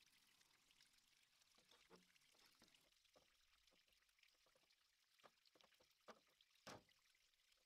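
Near silence, with faint scattered clicks and a short knock about seven seconds in, from a wrench being worked on plastic check-valve fittings of a blend manifold.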